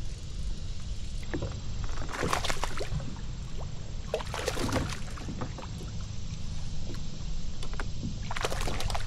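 Water splashing in three short bursts at the side of a fishing kayak, over a steady low rumble.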